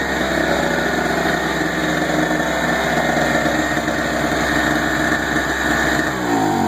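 Harbor Freight Storm Cat portable generator's 63 cc two-stroke engine running steadily, with a heat gun plugged in as its load. About six seconds in, its pitch starts falling as the engine slows down.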